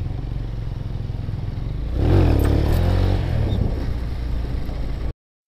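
Motorcycle engine running while riding, louder with its pitch rising and falling about two seconds in, then cut off suddenly just before the end.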